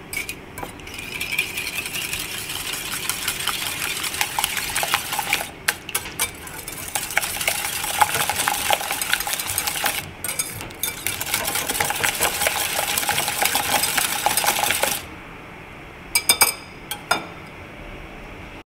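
A stainless steel wire whisk beating eggs, grated cheese and black pepper in a glass bowl: rapid clinking and scraping of the wires against the glass, with two short pauses. The whisking stops about 15 seconds in, followed by a few light taps.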